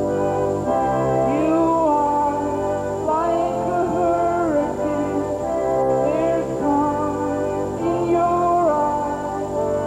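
Organ playing slow held chords that change every second or two, with a melody line above them that slides between notes.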